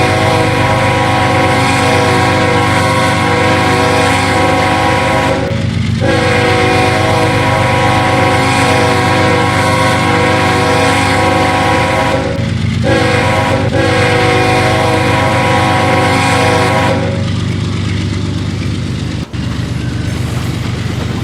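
Diesel locomotive air horn sounded in the grade-crossing pattern: two long blasts, a short one, then a long one, over the steady low rumble of the running engine. The horn stops about 17 seconds in and the engine runs on.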